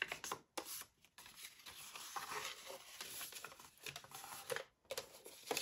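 Faint rustling of card stock being folded and pressed flat on a scoring board, with a few light taps and clicks.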